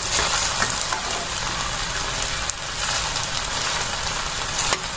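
Macaroni, chicken and carrots sizzling as they sauté in a metal pan, a steady crackle, with a spoon clicking and scraping against the pan a few times as it stirs them.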